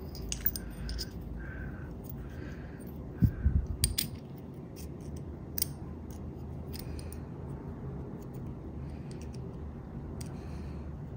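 Small clicks and taps of Shimano finned disc brake pads being handled and fitted into a hydraulic disc brake caliper, with a cluster of louder knocks about three to four seconds in.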